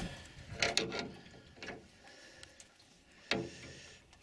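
A few sharp knocks and clicks of fishing gear and fish being handled in a small boat. Two come close together under a second in, one follows, and the loudest comes about three seconds in.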